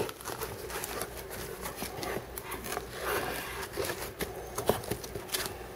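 Hands handling and opening a cardboard shipping box: scattered rubs, scrapes and light taps on the cardboard.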